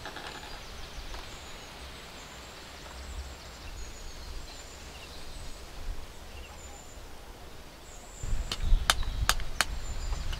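Quiet rural ambience with faint, short, high bird chirps. About eight seconds in a low rumble rises, and four sharp clicks follow about a third of a second apart.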